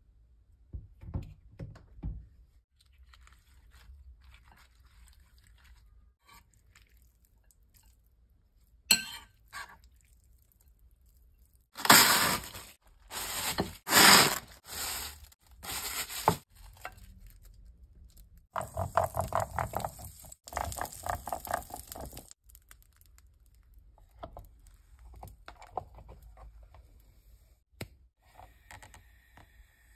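Kitchen food-prep handling sounds. A metal spoon taps softly in a bowl of shredded carrots, then a sharp click is followed by several loud crinkling strokes as a plastic film is handled over the bowls. A few seconds of rapid rustling and scraping come next, and faint handling noises close it out.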